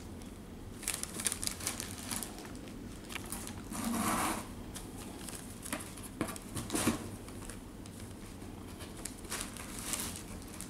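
Brown kraft packing paper crinkling and rustling in irregular bursts as kittens paw and tumble on it, with a longer burst about four seconds in.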